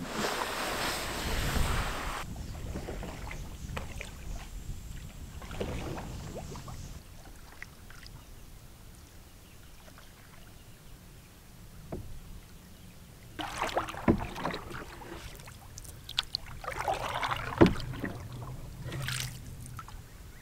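An Old Town canoe being launched from the shore, with a noisy scrape and splash for the first two seconds, then paddle strokes in the water. Two of the strokes carry a sharp knock, about three seconds apart.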